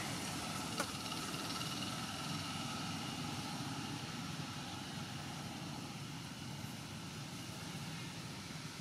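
Steady low rumble of outdoor background noise, like a distant engine or traffic, with a single sharp click about a second in.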